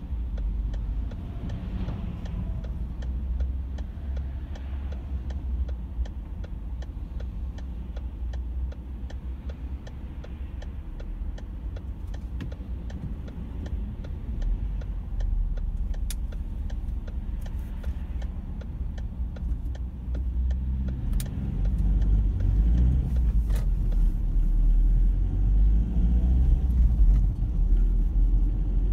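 Car engine and road rumble heard from inside a moving car's cabin, a steady low rumble that grows louder from about two-thirds of the way in. A faint regular ticking runs under it.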